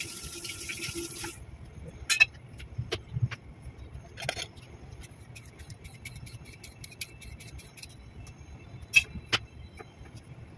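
Kitchen tap running over a vegetable being rinsed, shut off about a second in, then scattered sharp clicks and knocks of produce being handled and set down on the counter and cutting board.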